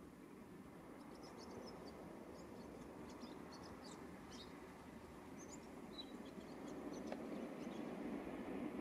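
Small birds chirping in short, high calls over a faint low rumble. The rumble grows louder near the end as a train approaches on the line.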